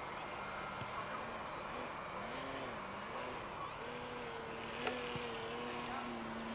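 The motor of an RC EPP foam biplane whines as it flies, its pitch swooping up and down over and over as the model manoeuvres and passes by, over a steady background hiss.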